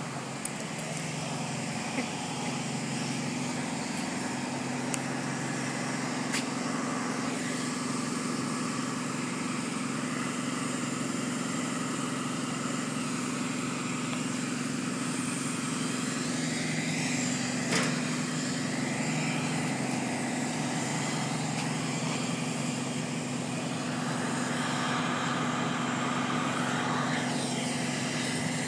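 A motor vehicle engine running steadily, a constant hum under steady outdoor noise, with one sharp click about eighteen seconds in.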